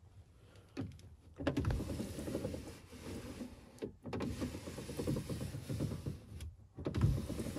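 Hand-cranked window regulator in a 1976 Mercedes 240D (W115) door, with the glass sliding up and down in its freshly greased tracks. It runs in three stretches with short pauses between them.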